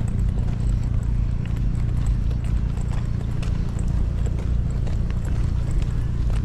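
Motorcycle engine running at low speed with a steady low thrum, with scattered light ticks over it.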